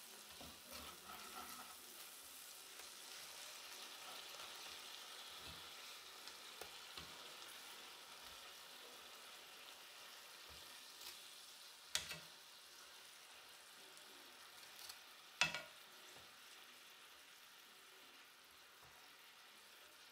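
Chicken breasts frying in butter and chopped garlic in a cast-iron skillet: a faint, steady sizzle, with two sharp clicks about twelve and fifteen seconds in.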